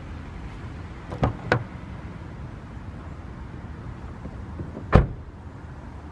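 Car front door opened, its handle and latch clicking twice about a second in, then swung shut with a loud thud about five seconds in.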